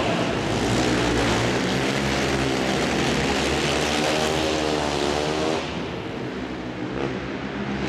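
Racing quad (ATV) engines at full throttle, several at once, on a dirt flat track. One engine's pitch wavers and climbs, then the sound drops off about five and a half seconds in as the pack passes.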